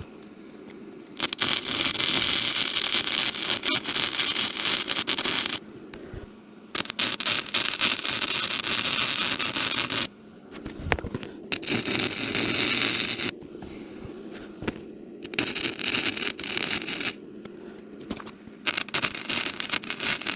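Small electric arc welder laying short weld beads on a steel hay feeder: five runs of steady crackling, each a few seconds long, with brief pauses between them where the arc is broken.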